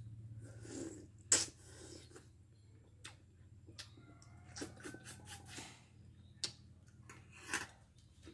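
Close eating sounds of a balut quail egg being chewed: irregular wet mouth clicks and lip smacks with short breaths through the nose. A sharper click comes about a second in, and a low steady hum runs underneath.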